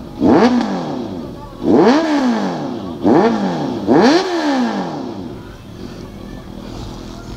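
Sport motorcycle engine revved in four quick throttle blips, each rising and falling in pitch, then dropping back to idle near the end.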